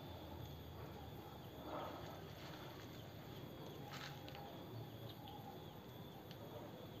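Faint outdoor ambience under the trees: a steady insect hum with a few short, high chirps.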